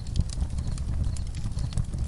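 Campfire crackling, with frequent sharp pops and snaps over a low steady rumble, and crickets chirping in short high pulses.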